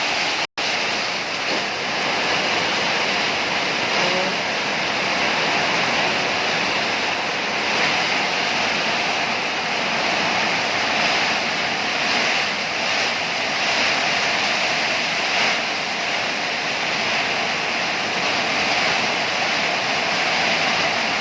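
Heavy rain pouring in strong wind: a steady rushing hiss that cuts out for an instant about half a second in.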